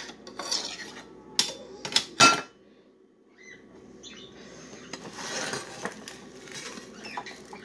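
Metal kitchen knives and utensils clinking and clattering as a hand rummages through a cutlery drawer. There are a few sharp clanks in the first two and a half seconds, the loudest just past two seconds in. After a brief lull comes a softer stretch of rattling.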